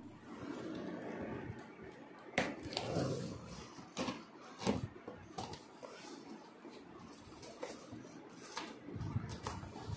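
Cardboard shipping box and its packing being handled and opened: scraping and rubbing of cardboard and plastic wrap, with a few sharp knocks.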